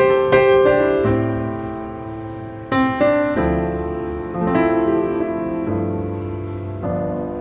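Slow solo piano music, a new chord struck every second or two and left to ring and fade.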